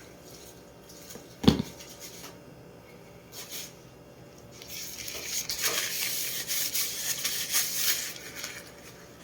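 A single sharp knock about a second and a half in, then about four seconds of irregular rustling and rubbing: tissue paper being pulled and wiped.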